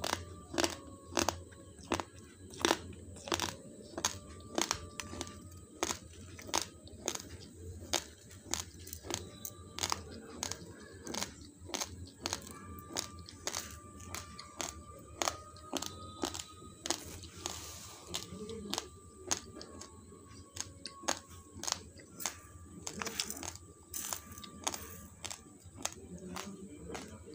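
Raw basmati rice being chewed: a steady run of sharp, dry crunches, about one to two a second.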